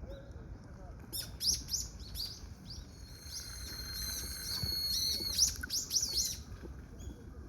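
Common kingfisher calling: starting about a second in, a run of sharp, high, falling chirps, then a long, thin, high whistle held for about two and a half seconds, then a few more quick chirps before it stops.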